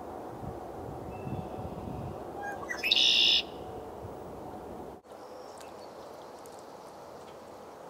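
Red-winged blackbird singing once about three seconds in: a short rising lead-in note and then a loud, buzzy trill lasting under a second. Under it a low background rumble cuts out abruptly about five seconds in.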